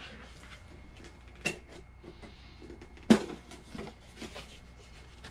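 Small cardboard shipping box being handled and its flaps pulled open: scattered rustles and scrapes, with a sharp crack about three seconds in.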